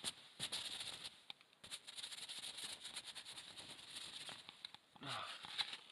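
Jacket fabric rustling and crinkling in quick, irregular crackles as the jacket is being put on, with a louder patch of rustling about five seconds in.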